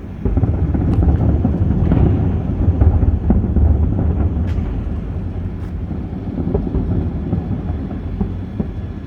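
Fireworks going off in the distance: a continuous rumble of overlapping booms with sharp cracks scattered through it, easing a little toward the end.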